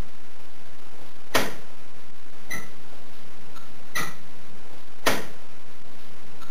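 Hand-operated flapping wing device clicking at each stroke of its hinge mechanism: four sharp clicks a little over a second apart, over a steady hiss.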